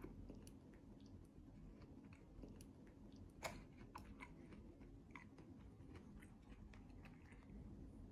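Faint sounds of someone chewing food, with scattered small clicks and one sharper click about three and a half seconds in.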